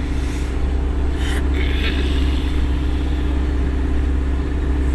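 Steady low drone of a truck's engine and tyres heard from inside the cab while driving on a snowy road. There are two brief hissing swishes, about half a second and a second and a half in.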